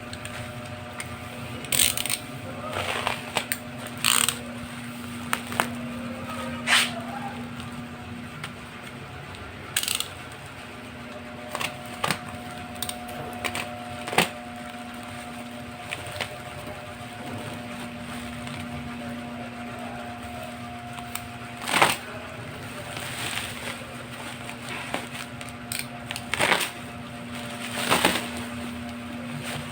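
Packaging being handled during an unboxing: scattered sharp clicks, knocks and rustles, irregularly spaced, over a steady low hum.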